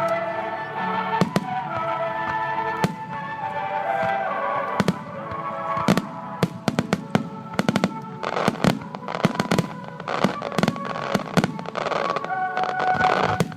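Aerial fireworks shells bursting, set against music: a few separate sharp bangs at first, then a dense run of rapid bangs and crackles from about six seconds in.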